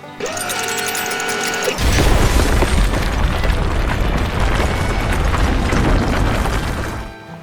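Cartoon sound effects: a short pitched tone with a small rise at the start, then from about two seconds in a loud, low rumbling boom lasting about five seconds that cuts off sharply near the end.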